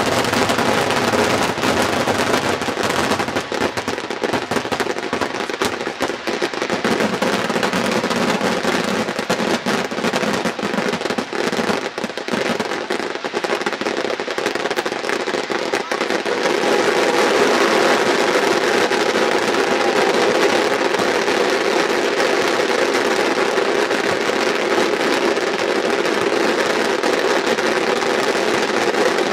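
Fireworks going off in quick succession: a dense, continuous run of bangs and crackling that grows a little louder and steadier a little past halfway.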